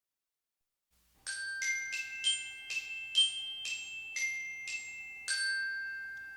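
A short glockenspiel melody of about eleven struck notes, beginning about a second in. The last note is held, ringing and fading away.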